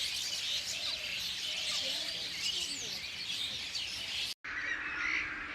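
Many birds chirping and calling at once, a dense chorus of short high chirps and whistles with a few lower calls among them. The sound cuts out for a moment about four seconds in, then the birds go on, a little quieter.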